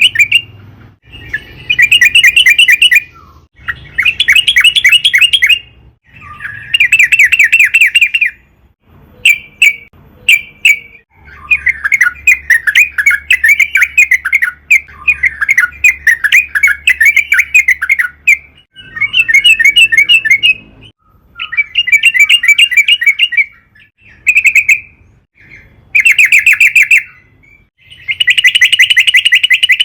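Yellow-vented bulbul (trucukan) singing loudly in repeated bursts of rapid bubbling notes. Each phrase lasts a second or two, with short pauses between, and a longer unbroken run comes around the middle.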